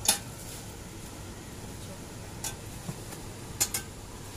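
Metal tongs clicking against a pan while a roti is puffed over a gas burner flame: a few short, sharp metal clinks, the loudest right at the start, another about two and a half seconds in and a quick pair a second later, over a steady low hum.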